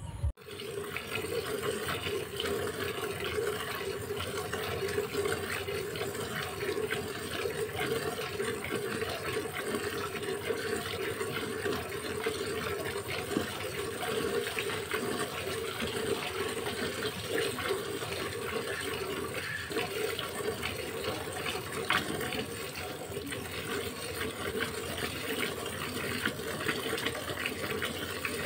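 Milk squirting from the teats into a plastic bucket during hand milking: a continuous run of quick, splashy squirts that starts abruptly just after the opening and keeps an even pace.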